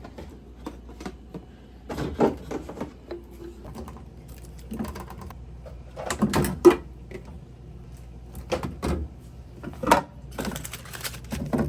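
Irregular knocks and clatter of jars, bottles and food containers being lifted out of a refrigerator and set down, with a low steady hum underneath.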